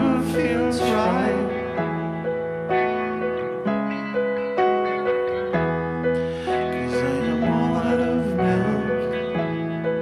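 A slow song played live: keyboard chords re-struck about once a second, with electric guitar and a man singing.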